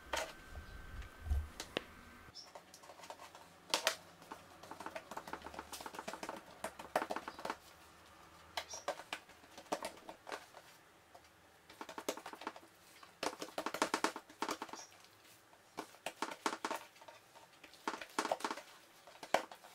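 Hands pressing and patting oiled yeast dough flat on a wooden tabletop: soft taps and sticky pats in short irregular clusters, a second or two apart.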